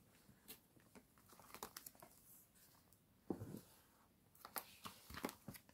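Faint rustling and clicking of plastic binder pocket-pages being handled and turned in a ring binder, with a thump about three seconds in and a run of clicks near the end.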